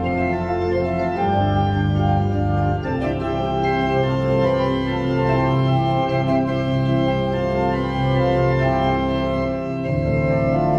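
Pipe organ playing an improvisation: full, sustained chords with a deep bass line, changing every second or so.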